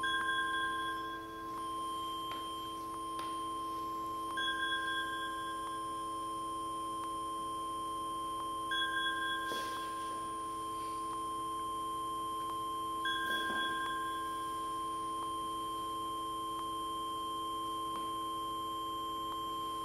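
Music box in a galvanised zinc bucket sounding the same short note four times, about every four and a half seconds, over a steady drone of several held tones.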